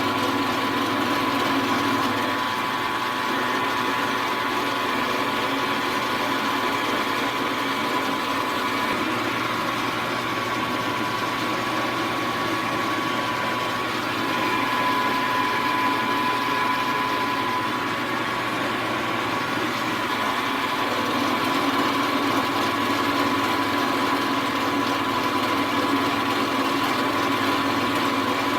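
Milling machine running steadily, its high-speed steel four-flute end mill cutting the part, with a steady hum and whine and a slight dip in level about halfway through.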